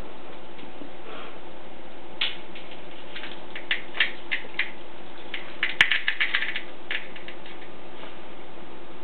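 A cat pawing and batting at a wand toy mouse wedged against a baseboard on a hard floor makes a scattered run of small, sharp clicks and taps. They start about two seconds in and bunch into a quick flurry around six seconds in.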